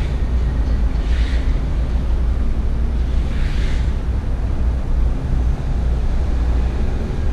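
Loud, steady low rumble on a body-worn GoPro 5's built-in microphone, like wind buffeting the mic: the recording-noise problem the GoPro 5 is known for. Two short hisses come through, about a second and three and a half seconds in.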